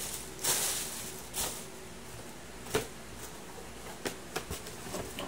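Tissue paper rustling as it is pulled out of a shoebox, then a sharper knock and several light taps of the cardboard box being handled.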